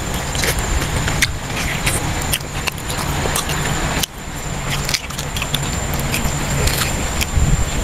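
Close-up eating sounds of a person chewing braised pork leg: wet mouth clicks and smacks, over a steady low rumble and a thin high whine.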